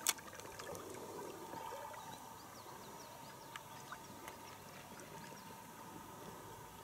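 Faint river ambience around an inflatable boat: soft water sounds with scattered small clicks and chirps, and one sharp click right at the start.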